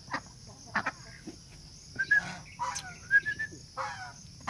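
Flock of white Pekin ducks calling: scattered short quacks and brief higher calls, a few each second with gaps between.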